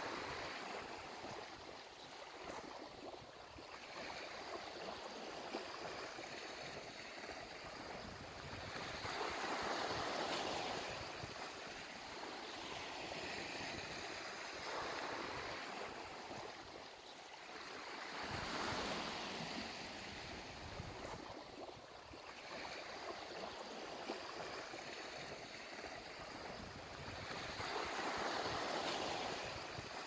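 Black Sea waves washing onto the shore, a steady wash with a louder surge about every nine seconds, three times.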